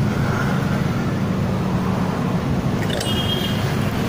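Automatic scooter engine running steadily at idle, with a short high-pitched tone about three seconds in.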